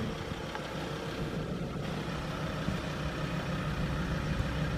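A vehicle engine idling: a steady low hum.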